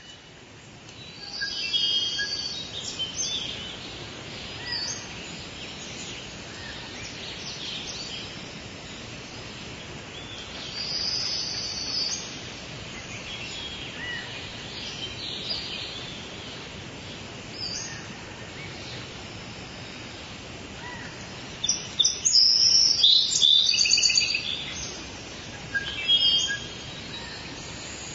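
Bursts of high-pitched chirping and twittering calls over a steady outdoor background hiss, loudest about three-quarters of the way through.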